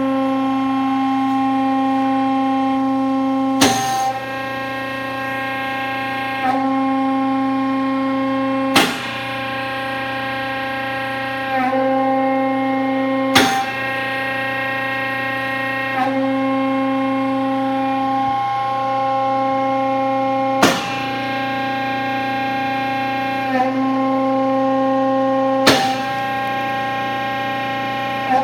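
Resistoflex hydraulic hose swaging machine running: a steady, loud pitched hum from its hydraulic power unit, the note shifting every few seconds as the machine works, with five sharp clunks spaced a few seconds apart.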